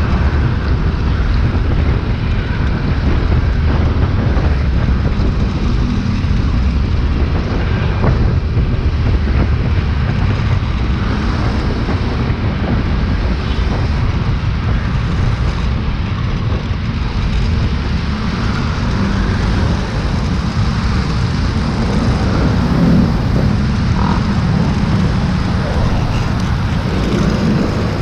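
Riding a scooter in traffic: steady wind buffeting the microphone over the scooter's engine and passing road traffic, a dense low rumble throughout.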